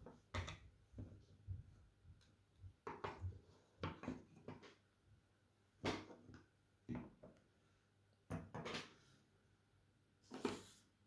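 Plastic shell pieces and circuit board of a taken-apart Microsoft Bluetooth mouse handled and set down on a wooden table: scattered light clicks and knocks, with a brief scrape near the end.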